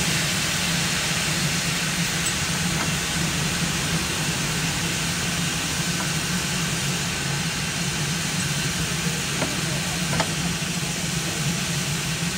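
Narrow-gauge train giving a steady hiss over a constant low hum, with a couple of faint clicks about nine and ten seconds in.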